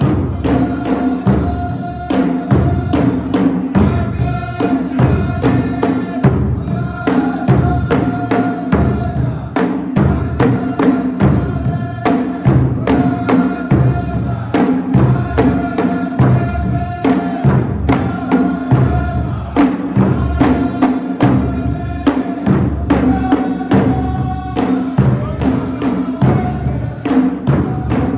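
Saudi folk troupe singing a wedding song in group unison over a steady, dense beat of drums, the sung lines held and repeated in phrases.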